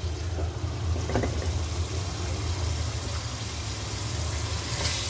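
Chicken pieces sizzling as they go into a hot pot of fried onions and tomato paste, with a steady low hum underneath; the hiss swells briefly near the end.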